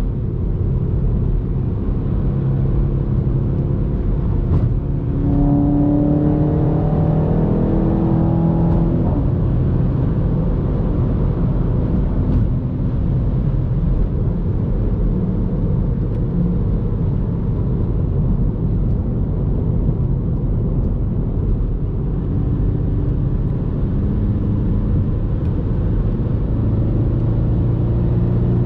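Inside the cabin of an F56 Mini Cooper S at highway speed: a steady drone of engine and road noise. About five seconds in, the turbocharged four-cylinder's note rises as the car accelerates, then settles back to a steady cruise.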